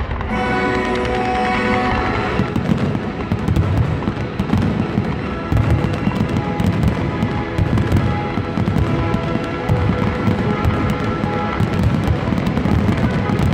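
Fireworks display: aerial shells bursting with rapid, overlapping bangs and crackles, growing dense a few seconds in, over loud music.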